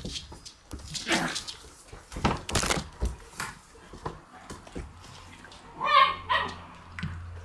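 Shiba Inu puppies playing and scuffling, with a string of short noisy snuffles and scrapes. About six seconds in there is one short pitched puppy yelp, the loudest sound.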